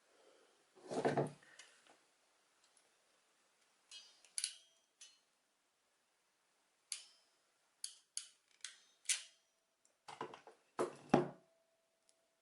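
Hand crimping tool clicking shut on tiny connector pins: a scatter of sharp metal clicks, with a heavier knock about a second in and two louder knocks near the end.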